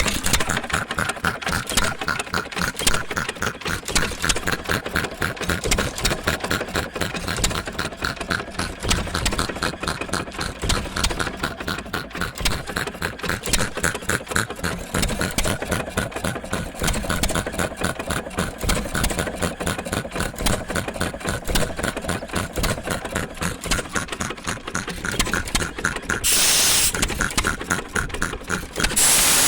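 1916 Associated 2-1/4 HP hit-and-miss engine air compressor unit running with a rapid, steady mechanical clatter. Near the end there is a hiss lasting a couple of seconds.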